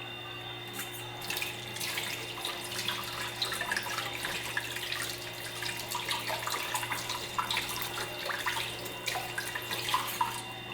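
Hands squeezing and kneading a sticky, wet dough of wheat flour and water, making an irregular wet crackling and squelching that starts about a second in.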